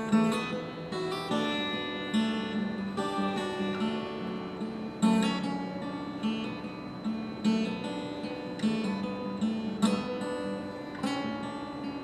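Solo acoustic guitar strummed in an instrumental passage of a song, each chord ringing out with a new strum about once a second.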